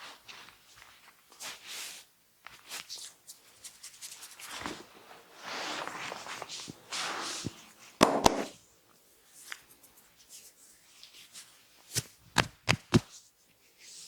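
Hands massaging an oiled neck: rubbing strokes over the skin through the middle, a loud pair of sharp smacks about eight seconds in, and a quick run of about five smacks near the end.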